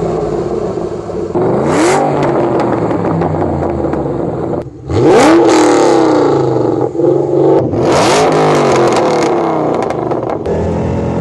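Shelby GT500's supercharged 5.8-litre V8 revved from idle outside the car, in short back-to-back clips of its exhaust: factory system first, then aftermarket stainless-steel headers and exhausts with X-pipe and H-pipe. Three rising revs, the loudest in the middle, with a brief drop in level about halfway where one clip cuts to the next.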